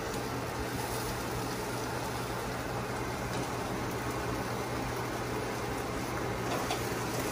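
Chopped vegetables sizzling as they sauté on the stove: a steady frying hiss over a low, steady hum.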